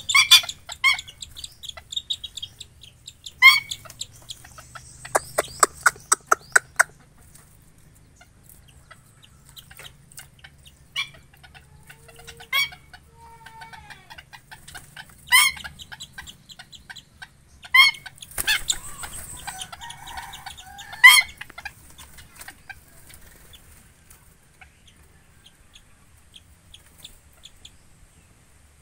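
Aviary birds calling: short, sharp single calls every few seconds, with a quick run of about eight calls around five to seven seconds in. A brief rustle comes about eighteen seconds in.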